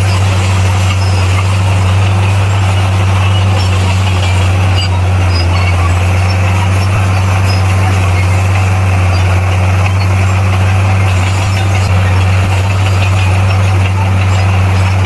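Heavy diesel engine of earthmoving machinery running steadily under load, with a deep, even hum and no pauses.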